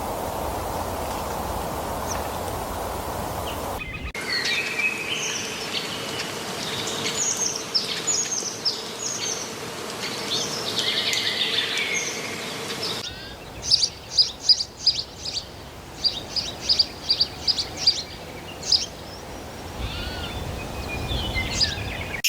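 Wild birds singing and calling in a run of separate recordings: first a steady background hiss with little distinct song, then, after a few seconds, a busy mix of chirps and short trills, and past the middle a series of sharp, high, repeated calls.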